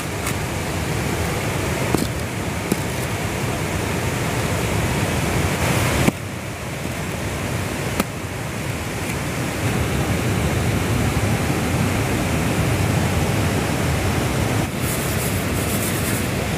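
Steady rush of water pouring over a lake's overflow spillway. A few sharp knocks near two, six and eight seconds in, as bricks are set down on stone.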